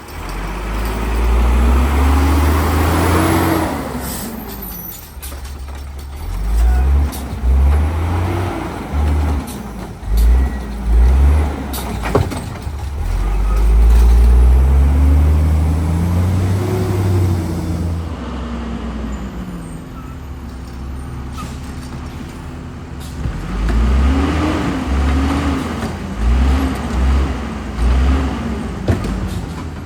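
Autocar WX rapid rail side-loader garbage truck's engine accelerating hard several times, its pitch climbing and falling back with each run, with air brake releases and a few sharp clicks in between.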